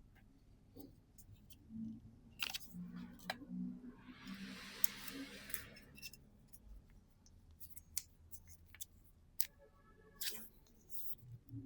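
Trading-card booster pack being opened and its cards handled. There are scattered sharp clicks and snaps, and a crinkling rustle of the wrapper for about two seconds in the middle.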